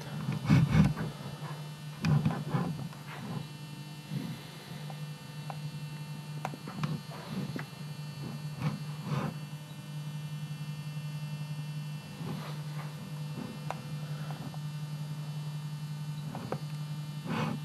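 Steady electrical mains hum under scattered knocks and rustles from a camcorder being handled and swung around, a few bumps a couple of seconds apart, the loudest near the start.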